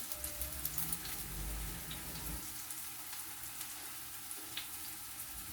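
Onions and garlic frying in olive oil in a frying pan, sizzling steadily with scattered crackles and pops; the gas flame under the pan is turned up too high.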